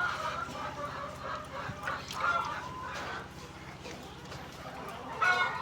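Laying hens clucking and chattering, with one louder, drawn-out call near the end, over a low steady hum.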